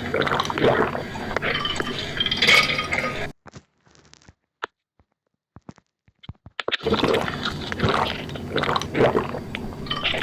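Someone drinking water, with wet liquid sounds that break off for about three seconds in the middle, leaving only a few faint clicks, then start again.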